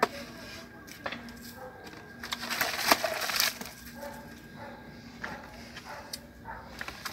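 Bare feet scuffing and shifting on dirt and dry leaves, with a few sharp knocks. The scuffing is loudest around the middle. Faint voices can be heard in the background.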